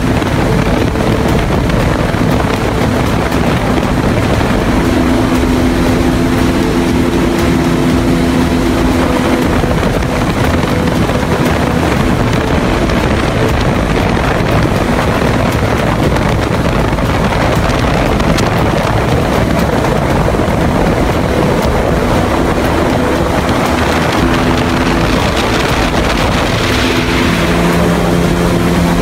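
Airboat engine and large rear propeller running at cruising speed, a loud steady drone whose note shifts now and then as the throttle changes.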